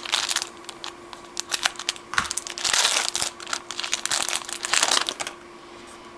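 Foil wrapper of a trading-card pack being torn open and crinkled by hand, crackling in irregular bursts that stop about five seconds in.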